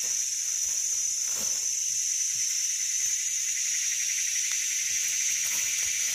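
Steady, high-pitched chorus of forest insects buzzing without a break.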